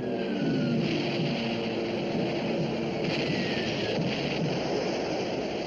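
Film soundtrack of a surface naval action: a loud, steady, dense rush of sea water and spray with a rumbling undertone, and a few low tones sliding down in pitch in the first second.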